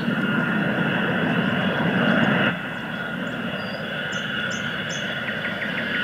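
Jet noise from a low-passing Ilyushin Il-76 four-engine transport: a steady rush with a high engine whine. The level drops suddenly about two and a half seconds in.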